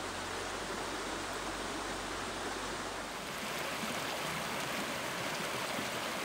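Small rocky mountain stream running, a steady rush of water over riffles and stones.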